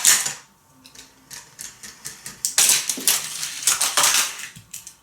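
Rapid, irregular clattering and rattling of small hard objects, with a dense run of clicks about half-way through that dies away near the end.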